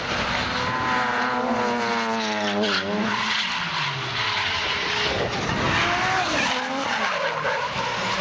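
Drift car engine held at high revs, its pitch wavering with the throttle, dropping away sharply about three seconds in and again near the end before climbing back, over the hiss of tyres skidding.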